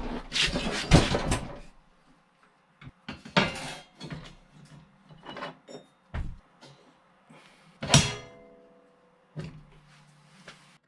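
Knocks and clatter of steel angle being handled, with one loud metallic clang about eight seconds in that rings briefly.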